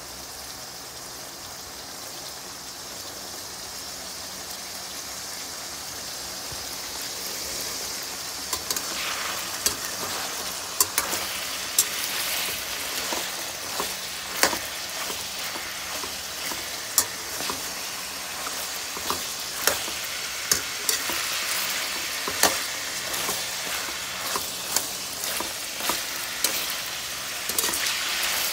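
Ilocos longganisa sausages sizzling in oil in a metal wok, the sizzle growing steadily louder. Partway through, a metal spatula starts clicking and scraping against the wok as the sausages are turned.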